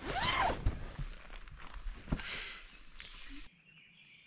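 A nylon tent door being unzipped and pushed open: a zip and rustling fabric, with two dull thumps.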